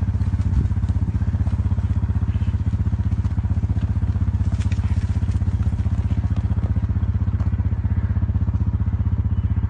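Small engine running steadily at an even speed: a low, rapid, even throb that never changes.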